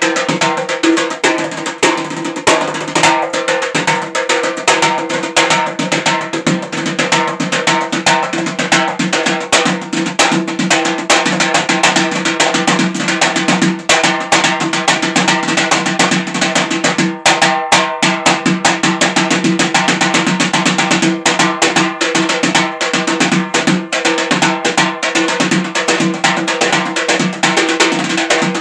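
Azerbaijani nagara hand drum played fast with the fingers and palms, a dense, unbroken run of strokes. Steady held melody notes sound alongside the drumming.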